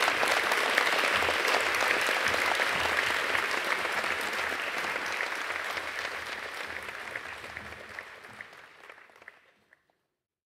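Audience applauding, loud at first, then gradually dying away until it stops near the end.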